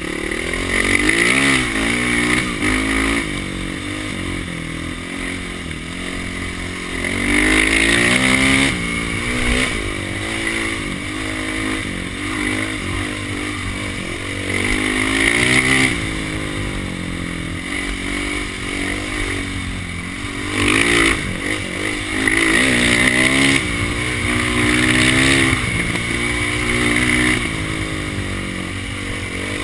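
Dirt bike engine under way. Its pitch repeatedly climbs as the throttle opens and falls away again, in a series of louder surges.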